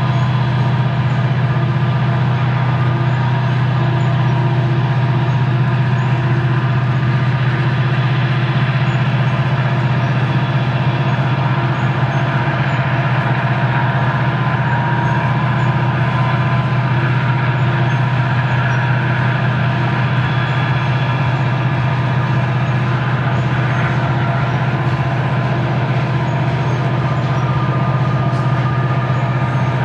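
Diesel locomotives hauling a loaded coal train, heard from afar as a steady, unbroken low drone with a few faint steady tones above it.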